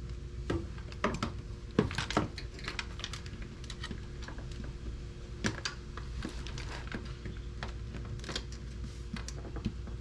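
Hands handling small plastic parts and wiring while fitting them onto a motorcycle: scattered, irregular light clicks and taps over a steady low hum.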